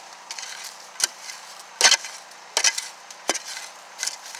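A metal-bladed hand digging tool chopping into dirt and roots, about five sharp strikes roughly three-quarters of a second apart.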